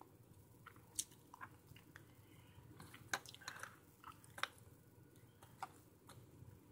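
Faint, scattered clicks and taps of fingers handling small plastic wireless earbuds in their charging case, about seven light clicks spread irregularly over a few seconds.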